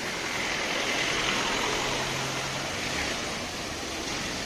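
High-pressure water jet from an Aimex electric pressure washer hissing steadily as it sprays onto a foam-covered car's windscreen and bonnet, easing slightly after about three seconds.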